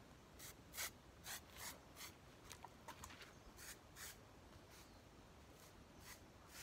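Faint, short scrapes of a small hand tool digging into dry garden soil: about a dozen strokes at uneven intervals, roughly half a second apart.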